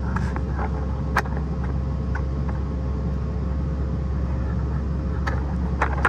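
Caterpillar mini excavator's diesel engine running steadily, heard from inside the cab as the dozer blade is worked over loose dirt. A few short sharp clicks or knocks stand out, once about a second in and twice near the end.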